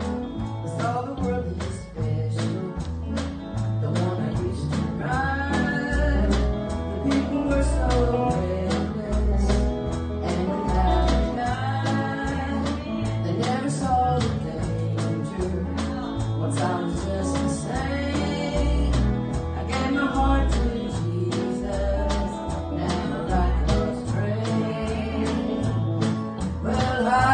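Live country-gospel band: electric guitar and a bass line over a steady beat, with voices singing.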